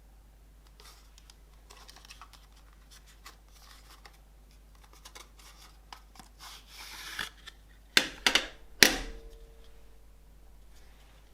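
A cassette and its packaging being handled: light scratching and rustling, a louder rasping scrape about six and a half seconds in, then three sharp clicks about eight to nine seconds in.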